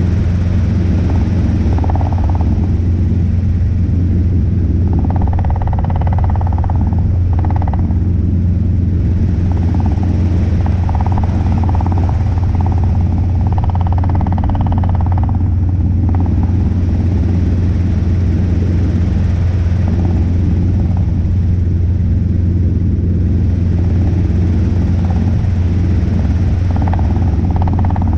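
Robinson R22 helicopter in steady cruise flight, heard from inside the cabin: a loud, even low drone of engine and rotor.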